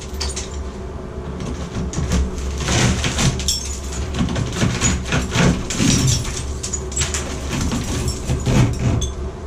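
Irregular knocks and scrapes, loudest near the middle and again just before the end, over a steady low hum.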